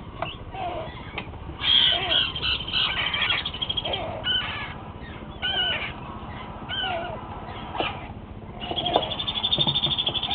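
Parrot chicks calling: repeated short, curved squawks, with two longer buzzing, rapidly pulsed calls, the first about two seconds in and a louder one near the end.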